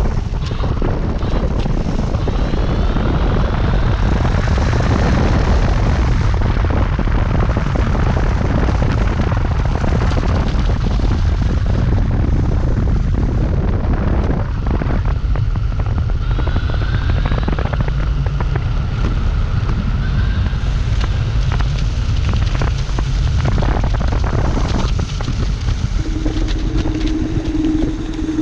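Electric scooter riding: heavy wind buffeting on the microphone with road noise, and a motor whine that rises in pitch twice as the scooter speeds up. A steady hum comes in near the end.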